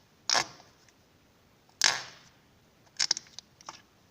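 Homemade clear slime (glue and borax) being squeezed and pressed by hand. It gives short wet squelches and fart-like pops: a single burst, a louder one, then a quick run of small snaps and a last squelch near the end.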